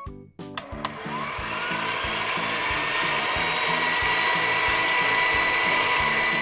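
Cartoon machine sound effect: a whirring rush with a rising whine, like a motor winding up, that cuts off suddenly near the end, as the animated ball-cannon toy charges before firing. Light background music with a steady beat runs underneath, with a few sharp clicks in the first second.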